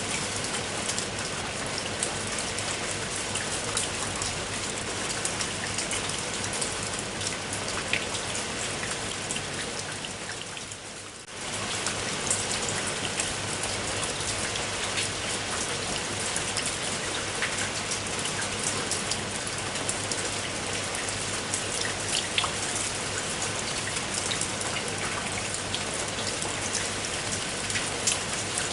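Steady rain falling, with many separate drops striking a surface. About ten seconds in the sound fades for a moment, then returns abruptly at full level.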